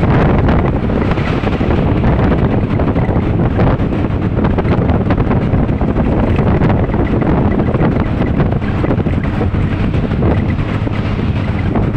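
Steady wind buffeting the microphone of a phone on a moving vehicle, over the low rumble of the vehicle and road traffic.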